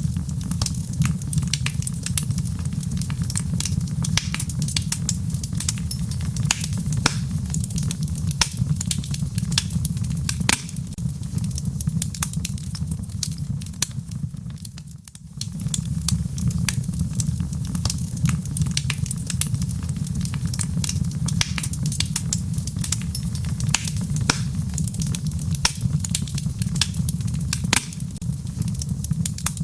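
Wood fire burning in a fireplace: a steady low rumble with frequent sharp crackles and pops. The sound briefly drops away about halfway through.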